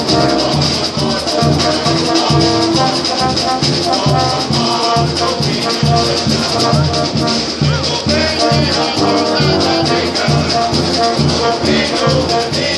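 A brass band playing live: brass instruments carrying held notes over a pulsing tuba bass line, with steady percussion throughout.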